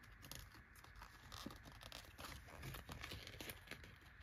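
Faint rustling and light ticks of paper: a sticker sheet and cash envelope being handled.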